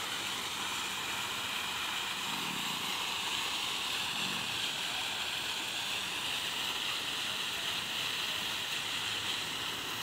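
Row of vertical water jets of a decorative fountain splashing steadily back into the basin, a constant hiss of falling water.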